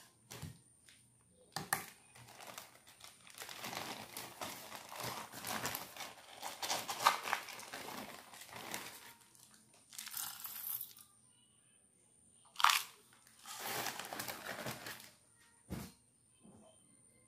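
A plastic bag of soy wax flakes crinkling and rustling as the flakes are shaken out into a stainless steel pot. One long stretch of rustling in the first half, then shorter spells and a few sharp crackles.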